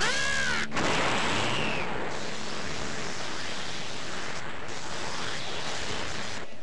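Super Saiyan power-up sound effect: a short warbling zap in the first second, then a steady rushing hiss of the aura, which stops suddenly at the end.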